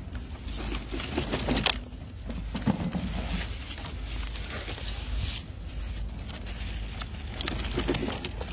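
Irregular rustling and crackling of strawberry plants and plastic clamshells being handled while strawberries are picked and packed, with louder bursts about a second in and near the end. A steady low rumble runs underneath.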